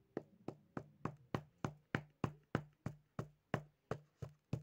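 Scissors tapped over and over against the hard shell of a hollow chocolate Easter egg, an even run of sharp knocks about three a second. The shell is hard and is not cracking.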